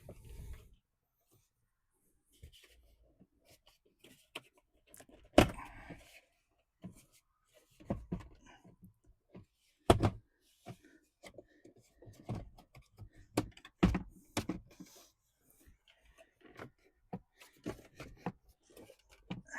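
Hands working a wiring harness along a vehicle's center console: scattered knocks, taps and rustles of plastic trim and wire. The loudest are sharp knocks about five, ten and fourteen seconds in.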